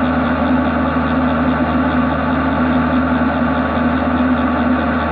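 Machining centre spindle running at a steady speed, driving a long vibration-dampened boring bar that cuts grey cast iron: a loud, steady machine hum with one strong constant tone.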